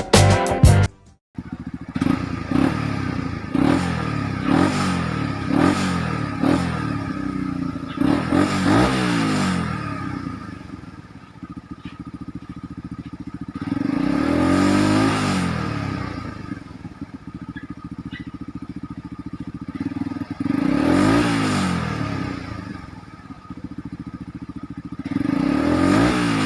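Suzuki Raider R150 Fi single-cylinder engine, all stock, running through an aftermarket Exos R6 exhaust pipe. It idles and is revved repeatedly: quick throttle blips early on, then longer revs that climb and fall back about every six seconds. Intro music plays for the first second.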